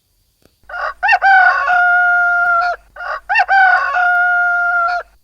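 A rooster crowing twice: each crow is about two seconds long, opening with short rising notes and then holding one steady note before it breaks off.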